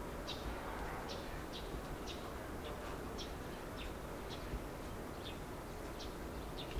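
A bird chirping over and over, short high notes about twice a second, over a steady low background rumble.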